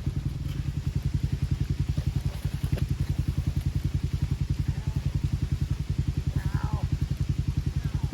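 A Ranger's engine idling with a steady, rapid chug of about ten beats a second.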